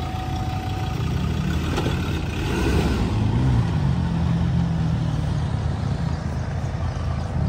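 Ford Endeavour's 3.2-litre five-cylinder diesel engine running at low revs as the SUV crawls over an articulation obstacle, the engine note swelling briefly about three seconds in.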